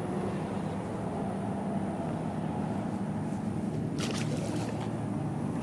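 Steady low hum of urban background noise, with a brief noisy burst about four seconds in.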